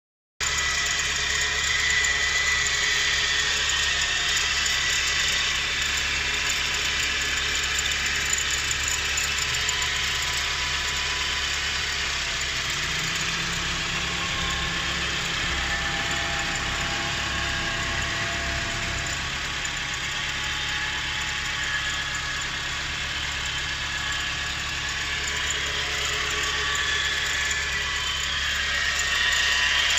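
Mitsubishi 4G13 inline-four engine running steadily with a strange whine over it, heard as steady high tones. A lower tone joins in for several seconds around the middle.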